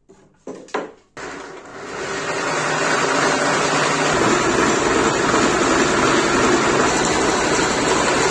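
A few short knocks, then a power tool working wood: a steady, dense rasping noise that starts about a second in and builds over the next second or two before holding.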